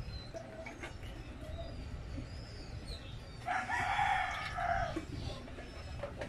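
A rooster crowing once, a single drawn-out call of about a second and a half, beginning a little past the middle.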